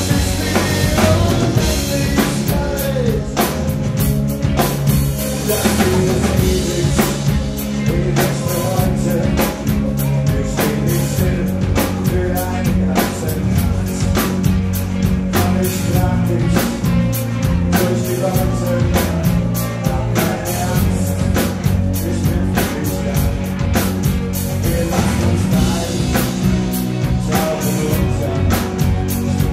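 Live rock band playing: a drum kit keeps a steady, driving beat under electric guitar and electric bass, loud throughout.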